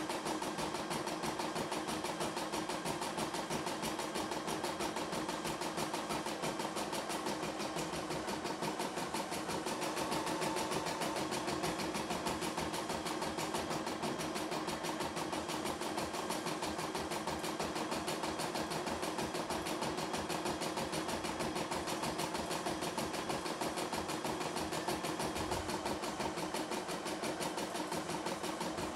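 CNY E960 computerized embroidery machine stitching out a design, its needle running in a rapid, steady rhythm.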